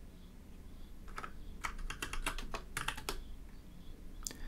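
Computer keyboard keys clicking as a terminal command is typed and entered, in irregular runs of quick keystrokes with short pauses between them.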